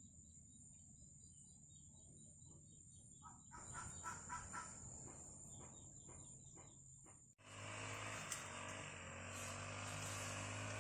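Outdoor ambience: a steady high-pitched insect drone with repeated chirping, and a bird calling several times about four seconds in. About seven seconds in it cuts abruptly to a louder, steady rushing noise with a low hum.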